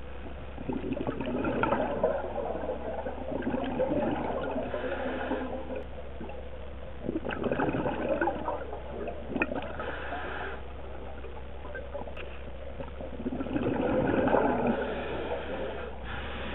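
Scuba diver breathing through a regulator underwater: bubbling exhalations and hissing inhalations come and go in surges roughly every five seconds, over a steady low hum.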